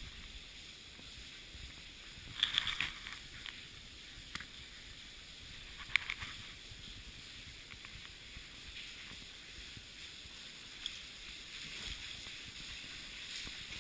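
Falling and trickling water in a cave passage, a steady hiss, with scattered knocks and scrapes of a caver climbing over rock, the loudest about two and a half seconds in and a sharp one about six seconds in.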